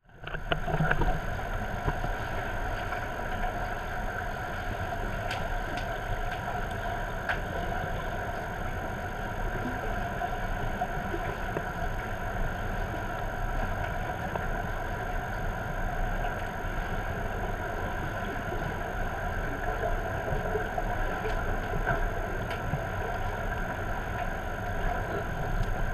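Steady underwater ambience of a swimming pool picked up by a camera in its waterproof housing: an even hum with several steady tones, and faint clicks now and then.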